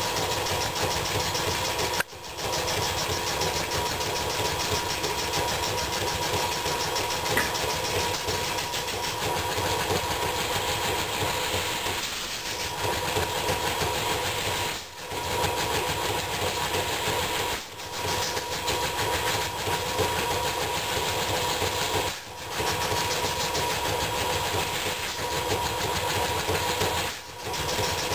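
Circa 1923 Brunner air compressor pumping, flat-belt driven by its original Westinghouse electric motor, running steadily as it builds up pressure, with a few brief drops in level.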